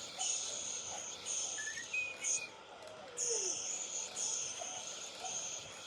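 Rhythmic 'pış pış' baby-soothing shushing, a hissing 'shh' about once a second, over a steady white-noise hiss.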